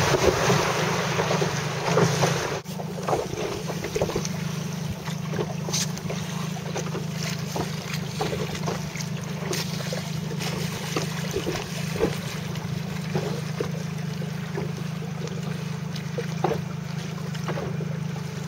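Water lapping and splashing against a small boat's hull, with a steady low wind rumble on the microphone.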